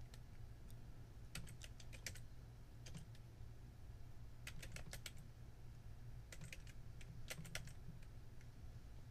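Computer keyboard typing, faint, in short runs of a few keystrokes each, over a low steady hum.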